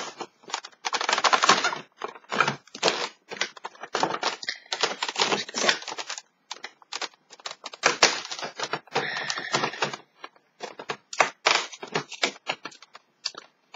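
Cardboard advent calendar door being pried open and the product worked out of its compartment: irregular crackling, clicking and rustling of cardboard handled by hand, with brief pauses between bursts.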